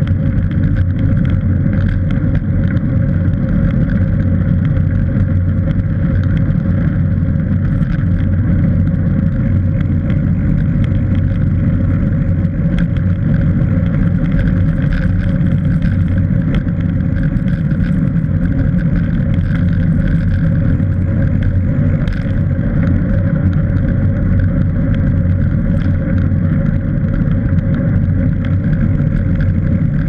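Steady wind rush and low road rumble on a bicycle-mounted camera's microphone while riding a cross bike on asphalt, with faint scattered ticks.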